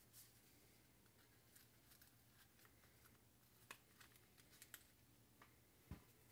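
Near silence, with scattered faint clicks and light knocks of plastic FPV goggles and their head strap being handled and fitted back together; the loudest is a dull knock near the end.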